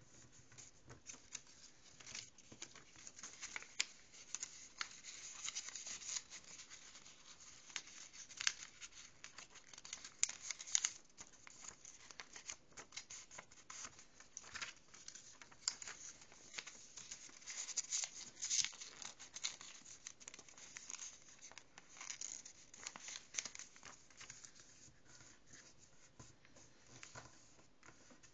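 Sheet of origami paper rustling and crackling as hands fold and crease it on a wooden table, in an irregular run of soft crinkles and light scrapes.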